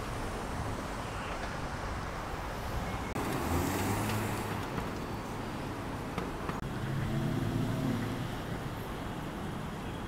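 City street traffic: a steady noise of cars running, with a low engine hum swelling twice, about three and a half seconds in and again around seven seconds.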